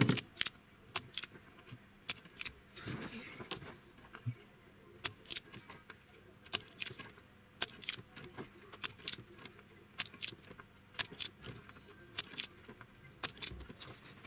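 Sharp, irregular metallic clicks and taps, about two a second, from tools working the pins of a chip on a circuit board while it is desoldered with a soldering iron.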